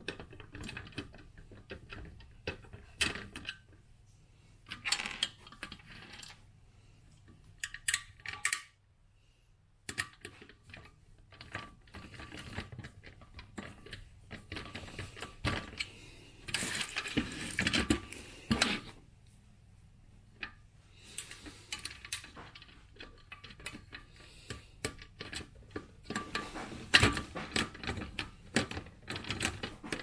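Small metallic clicks, clinks and scraping of screws and a hand screwdriver working on a floor fan's metal cross base and pole, with a denser run of scraping a little past halfway.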